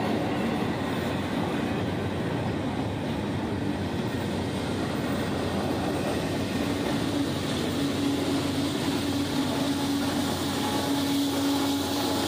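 Train rolling past with a steady rumble and rattle of railcars, and a steady hum coming in about halfway through.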